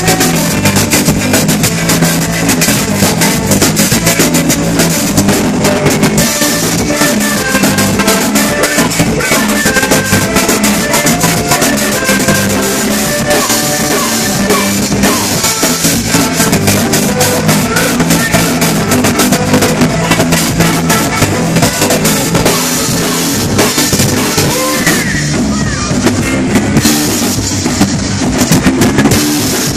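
Live band playing a cumbia at full volume: drum kit with bass and snare drum keeping a steady beat under electric guitar and horns.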